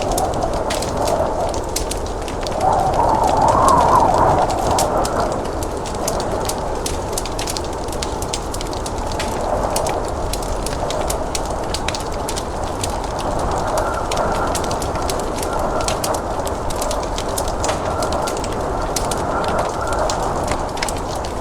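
Fire crackling with many small sharp pops, over a steady blizzard wind that swells for a couple of seconds about three seconds in.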